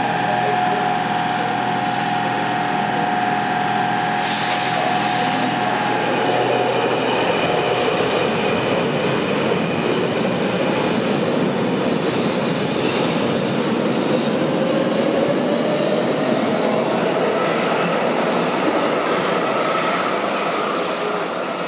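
Metro train at an underground station platform: a steady electrical hum with a short hiss about four seconds in, then a rolling rumble with a whine that slowly rises in pitch.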